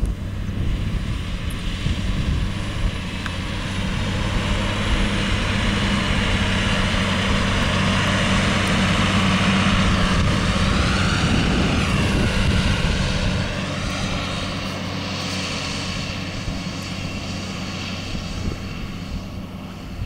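Claas Arion 610 CIS tractor's six-cylinder diesel engine running steadily under load while ploughing, growing louder as it passes close by and fading somewhat after the middle. A higher whine wavers up and down in pitch around the middle.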